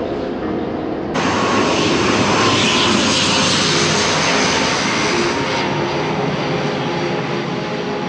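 Jet airliner engines passing close by, a steady loud rushing noise. It jumps suddenly louder and brighter about a second in, peaks a couple of seconds later and then eases off.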